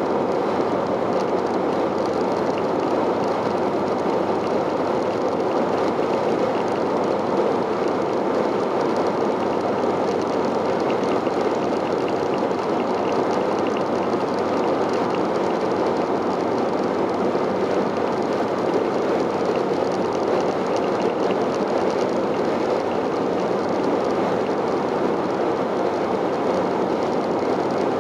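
Steady road noise inside a car's cabin at motorway speed: the even rush of tyres and wind with the engine's drone beneath, never changing.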